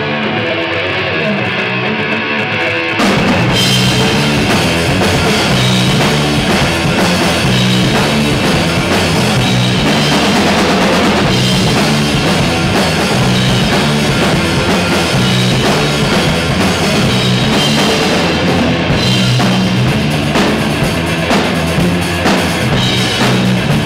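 Live rock band of electric guitar, bass and drum kit starting a song: a quieter opening, then about three seconds in the full band with drums comes in and plays on at a steady loud level.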